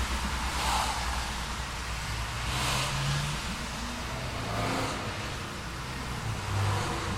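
Road traffic on a city street: cars passing one after another, their tyre noise swelling and fading about every two seconds, over a low hum of engines.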